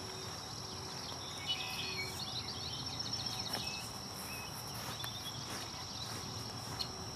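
Field ambience: a steady high insect drone, with scattered bird chirps now and then.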